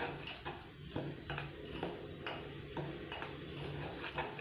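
Steel spoon scraping and clinking against a stainless steel bowl while stirring a dry, crumbly ground-biscuit cake mix, about two strokes a second.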